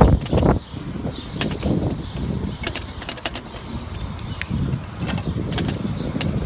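Wind buffeting the microphone of a camera on a moving bicycle, with scattered rattling clicks as the bike rolls over the road. A loud bump comes right at the start.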